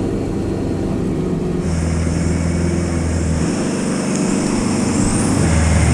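The engine of an off-road Toyota 4x4 running at steady revs while the truck sits bogged in mud, its note shifting a few times. A steady hiss comes in about two seconds in.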